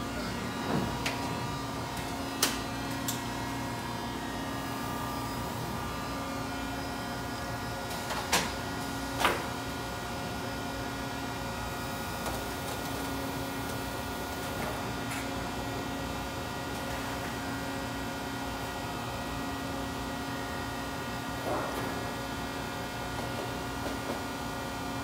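Steady machine hum from a Mitsubishi Diamond 3000LX sheetfed offset press, with a few sharp clicks and knocks scattered through, the loudest two about eight and nine seconds in.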